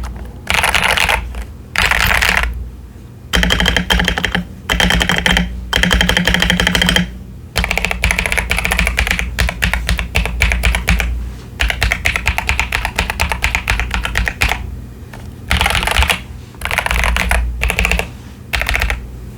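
Mechanical keyboard typed on fast in runs of one to several seconds with short pauses between. It is a modded CIY Tester 68 with pre-lubed tactile Akko Lavender Purple switches, doubleshot PBT keycaps and masking tape on the PCB.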